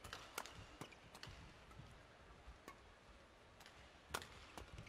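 Badminton rally: faint, sharp pops of rackets hitting the shuttlecock, mixed with players' footfalls on the court, scattered at irregular intervals with the loudest strike about four seconds in.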